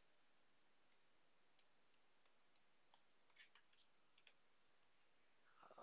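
Faint, irregular clicks of computer keyboard keys typing, about a dozen keystrokes spread over several seconds, some in quick pairs.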